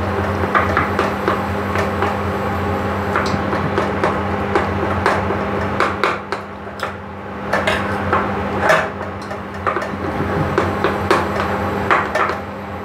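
Metal spoon stirring minced pork in a ceramic bowl, clinking and scraping against the bowl in irregular clicks. A steady low hum runs underneath.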